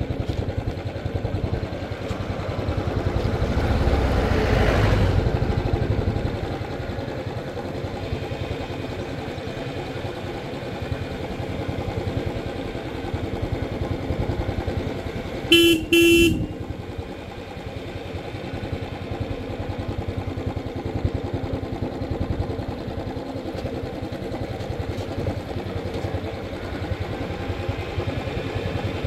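Royal Enfield Classic 350's single-cylinder engine running while riding, with the rumble swelling a few seconds in. About halfway through a horn gives two short toots.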